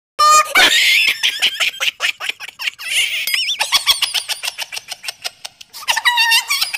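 Comedy sound effects: a fast run of sharp clicking pulses, about seven a second, with high warbling, wobbling whistle tones over them.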